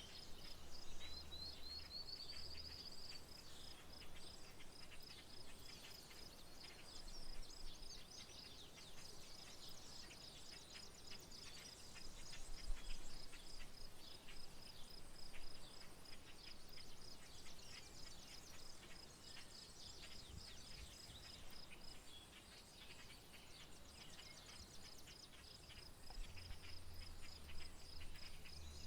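Outdoor wetland ambience: an insect's steady, evenly pulsing high trill runs under many short bird chirps and calls, one of them a rising call about a second in. A faint low rumble is heard at the start and again near the end.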